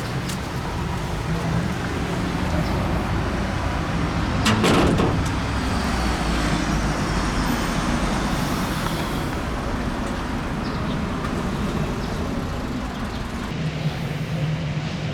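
City street traffic: motor vehicles running and passing close by, swelling as one goes past, with a sharp knock about four and a half seconds in.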